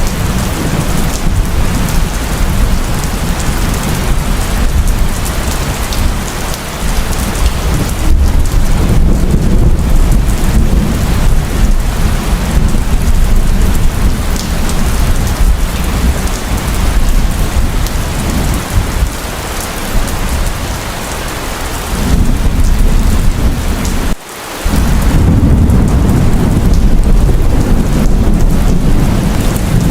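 Heavy rain pouring, with a continuous low rumble of thunder under it. The sound briefly cuts out about two-thirds of the way through, then resumes.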